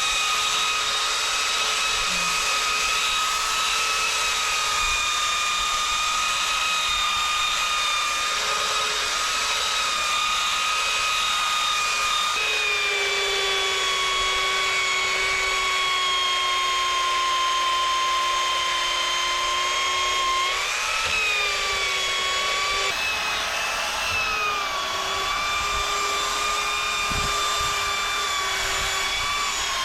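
Electric power saw running steadily with a high motor whine while it cuts lumber. Its pitch sags slightly about twelve seconds in and wavers a couple of times later as the load changes.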